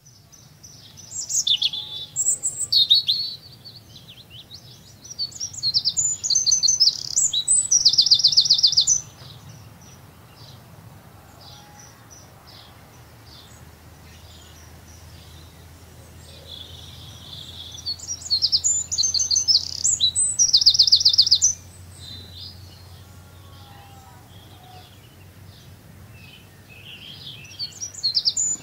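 Songbirds singing: bursts of fast, high trilled song near the start and again past the middle, with softer chirps in between, over a faint low steady hum.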